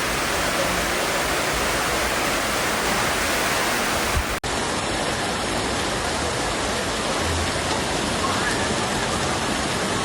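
Floodwater rushing down a street under heavy rain, a steady noise of running and falling water. It drops out for an instant about four seconds in and resumes.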